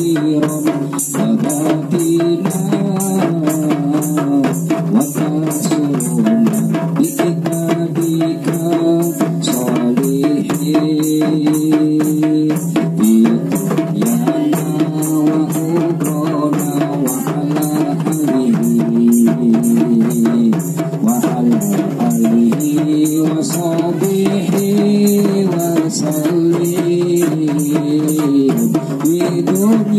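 Women singing shalawat, devotional songs praising the Prophet, with long held, slowly gliding notes. They are accompanied by a steady beat of hand-struck rebana frame drums.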